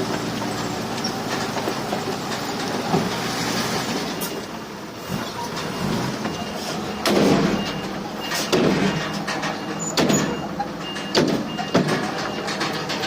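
Heavy diesel earthmoving machinery running, with several louder surges in the second half, and a faint repeated beeping.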